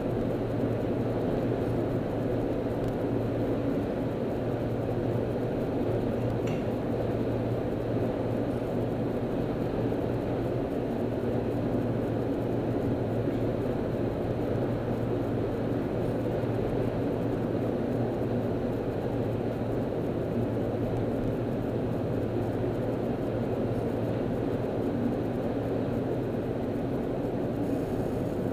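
Steady road and engine noise inside a car's cabin at freeway speed: a low, even drone with tyre and wind rush.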